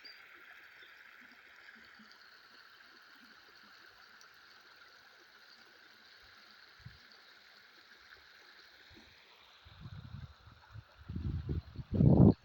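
Water running in a stream, a steady rushing hiss. From about ten seconds in, irregular low rumbling bumps come over it, loudest just before the end.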